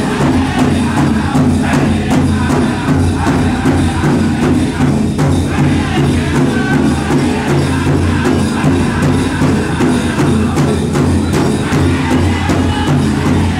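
Powwow drum group: a big drum beaten in a steady, even beat while the singers chant over it.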